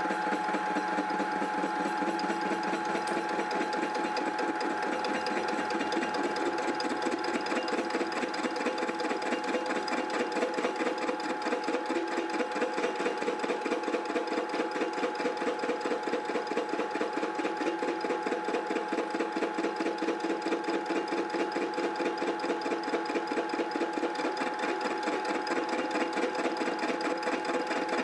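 Indexable face mill on a small milling machine cutting iron: a steady machine whine with a fast, even pulsing as the inserts bite into the workpiece.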